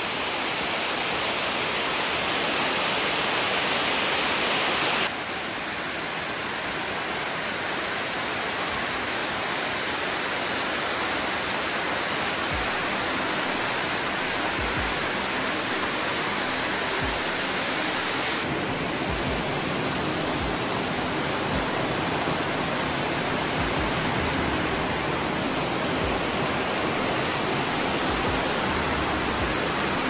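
Jermuk waterfall and the river below it, water rushing steadily. The sound changes suddenly about five seconds in and again a little past the middle.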